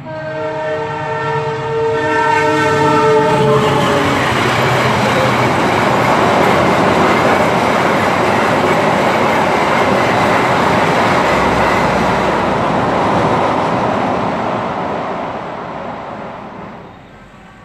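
Sembrani passenger train's locomotive sounding a long horn for about four seconds, its pitch dropping slightly as it ends, while the train reaches the level crossing. Then the steady rolling and wheel clatter of the coaches passing for about twelve seconds, dying away near the end.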